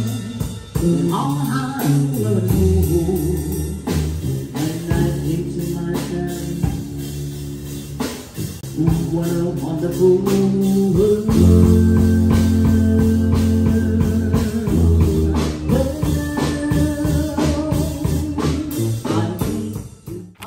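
Band music with a singer, drums and a sustained low bass line, breaking off briefly near the end.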